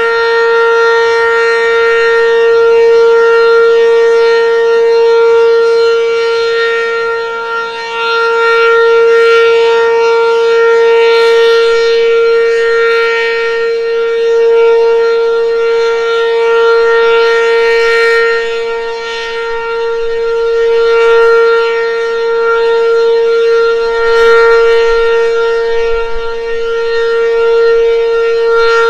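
ACA Banshee 8-port outdoor warning siren sounding its full alert signal: one steady, unbroken tone. Its loudness swells and fades about every six seconds as the rotating siren head sweeps past.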